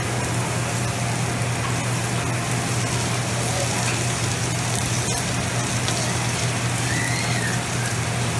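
Lo mein, vegetables and shrimp sizzling on a hot flat-top hibachi griddle as a cook works them with metal spatulas: a steady hiss over a steady low hum.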